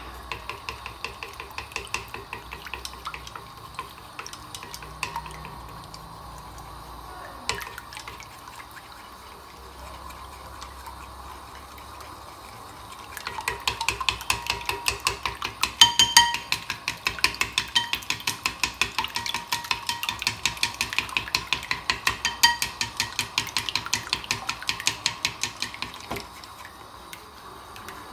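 Chopsticks beating raw eggs in a ceramic bowl for a thin omelette: fast, even clicking of the chopsticks against the bowl, lighter at first, then louder and quicker from about halfway, stopping shortly before the end.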